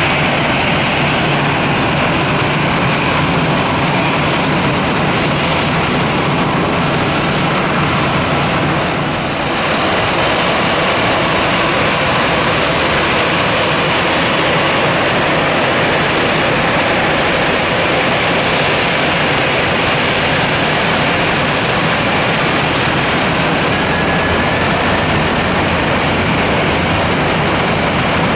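Airbus A320 jet engines running at taxi power: a steady rushing noise with a thin high whine over it.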